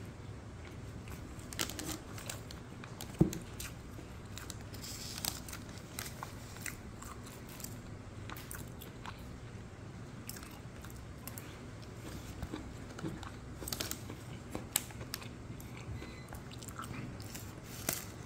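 A person chewing and biting into deboned grilled chicken leg, close to the microphone, with small scattered crunches and clicks and one sharper click about three seconds in.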